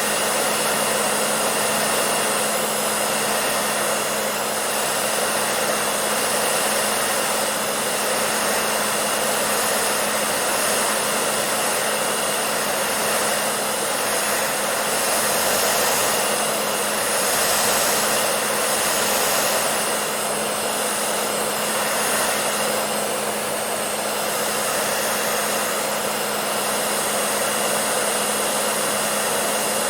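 Hair dryer running steadily: a constant rush of blown air with a steady low motor hum underneath.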